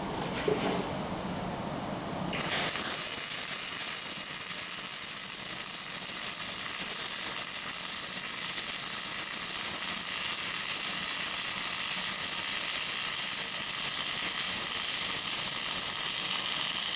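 Wire-feed arc welding on steel structural angle bar: the arc strikes about two seconds in and then runs with a steady crackling sizzle as the bead is laid along the joint.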